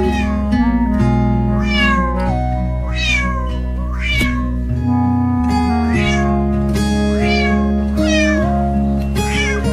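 Background music with cat meows over it, roughly one a second, each falling in pitch.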